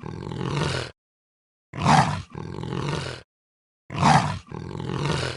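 Snow leopard calling: three calls about two seconds apart, each a loud opening followed by a longer, quieter tail.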